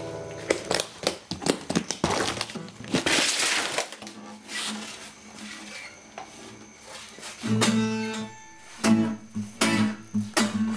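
Clicks, knocks and rustles of a guitar being handled and lifted out. About seven and a half seconds in, strummed chords on a twelve-string acoustic guitar start in short bursts with pauses between them.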